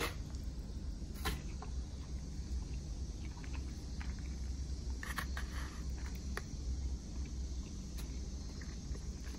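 Metal fork clicking and scraping against a disposable plate of rice and chicken a few times, with a cluster of clicks about five seconds in, over a steady low hum.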